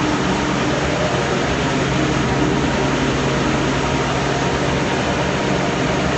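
Large industrial sander running steadily, with a constant hum under dense grinding noise, sanding wood at 180 grit.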